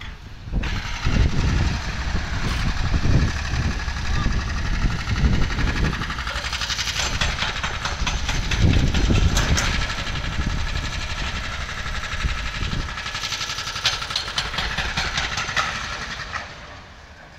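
Excavator engine running at a demolition site, with clanks of the work on the stands from about six seconds in, and wind buffeting the microphone in uneven low rumbles. The sound fades near the end.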